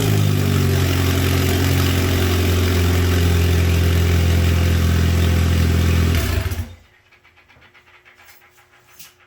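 Turbocharged 2004 Chevrolet Cavalier's engine idling steadily just after a restart on its new fuel pump, having started without any throttle. It is switched off about six and a half seconds in and stops abruptly.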